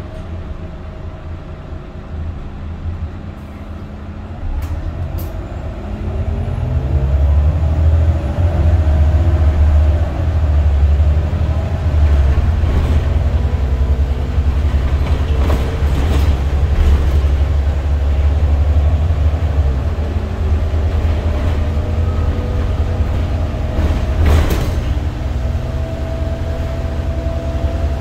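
Iveco Cursor 8 six-cylinder diesel of an Irisbus Citelis 12 city bus with Voith automatic gearbox, heard from inside the cabin, accelerating hard under kickdown. The engine rises in pitch and grows louder about five seconds in, then runs steadily under load, with a rising whine near the end.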